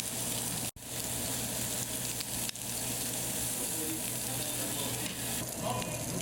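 Food sizzling and crackling on a hot pan or grill. The sound cuts out for an instant a little under a second in.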